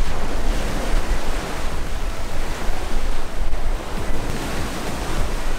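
Surf breaking on the beach, with strong wind rumbling across the microphone.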